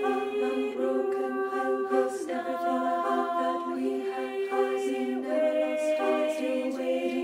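Choral music: a choir singing sustained, overlapping notes in harmony, unaccompanied.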